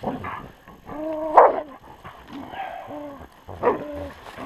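West Siberian Laikas barking in short, pitched calls as they worry the carcass of a freshly shot bear, the loudest about a second and a half in.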